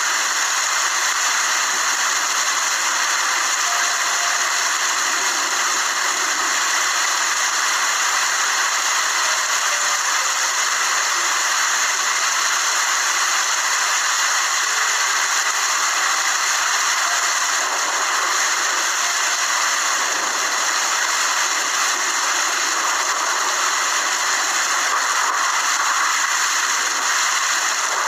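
Steady rain falling, an even hiss at a constant level with no single drops or thunder standing out.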